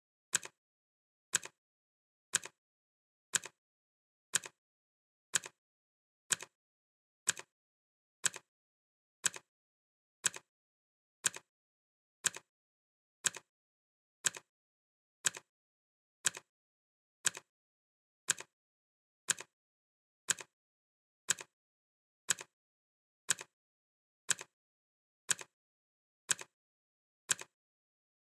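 Clock ticking steadily, about one sharp tick a second, evenly spaced.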